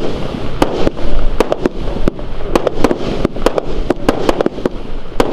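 Consumer fireworks cake from the Geisha Pyrorebels '10 Wild Geisha's' assortment firing a rapid volley. Shots launch and small shells burst in quick, irregular succession, several a second, with no break.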